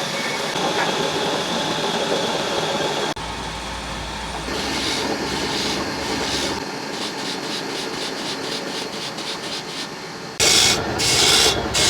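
A steady mechanical din, then a run of rhythmic rasping strokes, about three a second, from a file sharpening a saw blade. The strokes grow louder and slower near the end.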